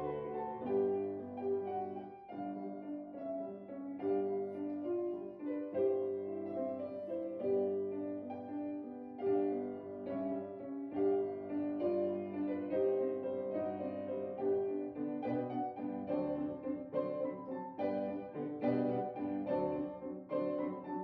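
Background piano music, gentle and steady, with notes changing throughout.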